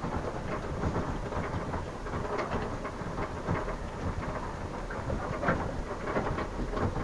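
Inside a truck cab on the move: the engine runs under a low rumble while the cab rattles and knocks as the truck rolls slowly over rough gravel.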